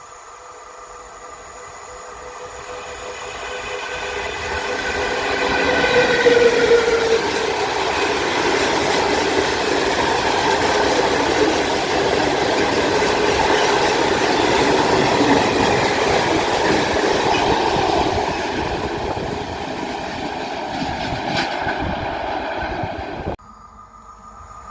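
A freight train, an ET22 electric locomotive hauling open coal wagons, passing close by: a loud, steady rumble and clatter of wheels on the rails that builds over the first six seconds, with a tone sliding downward about six seconds in. The sound cuts off suddenly near the end.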